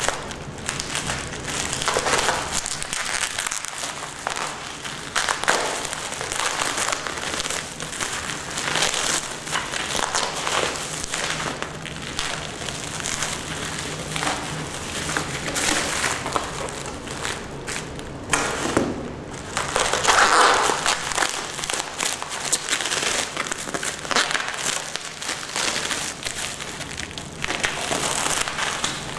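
Plastic bubble wrap crinkling and rustling as hands pull it out of a cardboard box and unwrap it, in irregular swells with a louder stretch about twenty seconds in.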